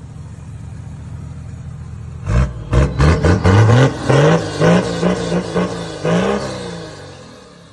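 A four-wheel-drive's engine heard at its exhaust tip: it idles steadily, then about two seconds in it is revved in a string of quick throttle blips, each rising and falling. Near the end it settles back toward idle.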